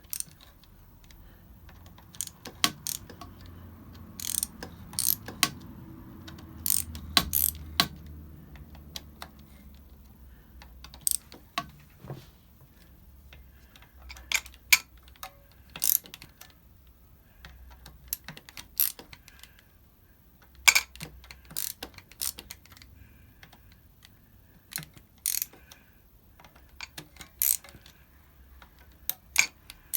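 Socket ratchet clicking in short, irregular runs as the clutch spring bolts of a Kawasaki ZX-7R are backed off in turn, with sharp metal clicks and clinks between the runs.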